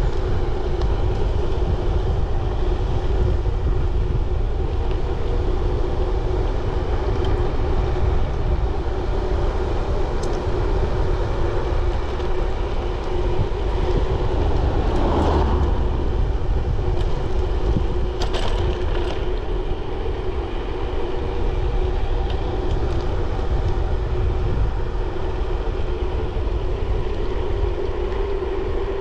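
A bicycle riding along at speed: wind rushing over the microphone and tyres rolling on the road, with a steady hum and a brief swell about halfway through.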